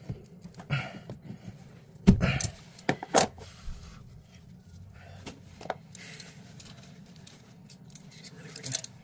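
Metal clinks and knocks of a wrench on a chrome toilet angle stop valve. The loudest knock comes about two seconds in, with two more soon after and a few lighter clicks later.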